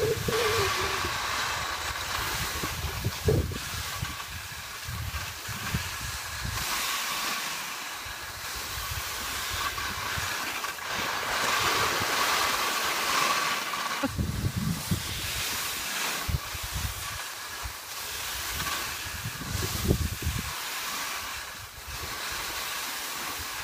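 Skis hissing and scraping over snow during a downhill run, with wind buffeting the microphone in gusts that come and go.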